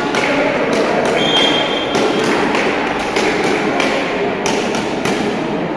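Echoing din of an indoor sports hall during a children's shuttlecock-kicking (đá cầu) game: a steady wash of voices with repeated thuds and taps from play on the court.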